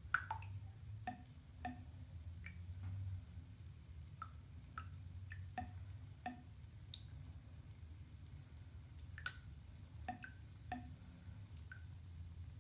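Irregular water drips plinking into a full bathtub, about one every half second to a second, over a low steady hum.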